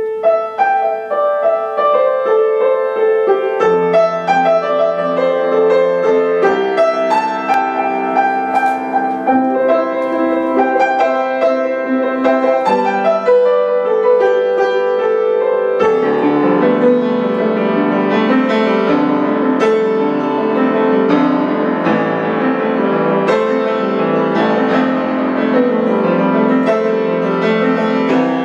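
Grand piano played solo: a quick run of separate struck notes that begins at once, growing fuller and denser about halfway through.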